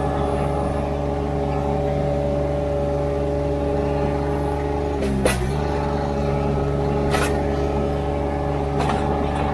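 Ditch Witch SK800 mini skid steer's engine running steadily at working speed. About halfway through there is a sharp knock and the engine pitch briefly dips under load, with two fainter clanks near the end.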